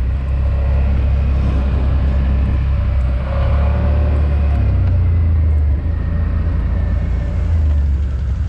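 ATV engine running steadily with a low rumble, wind noise over it.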